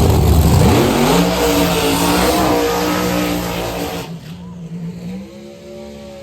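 Race car engine running hard at full throttle in the first second, then fading away and leaving a steady engine drone. The sound drops off sharply about four seconds in, and a quieter engine rises in pitch near the end.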